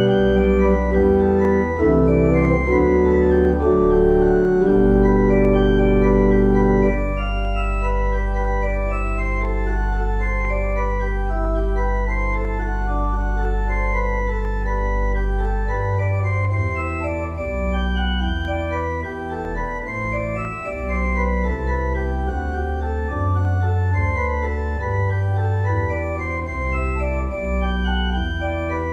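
Organ playing sustained chords. A deep bass note is held for about ten seconds in the middle, after which the chords change more often.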